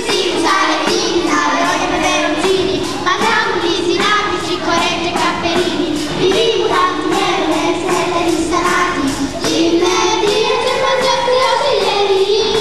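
A children's song: children singing a melody over backing music with a steady beat.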